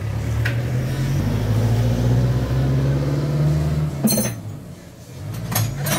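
An engine running steadily, with a sharp metallic clink about four seconds in, after which the engine sound drops away for about a second before returning.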